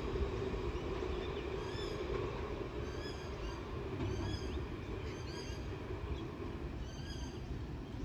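Electric tram running away along the track, its low hum and rumble fading over the first few seconds. Birds chirp repeatedly throughout.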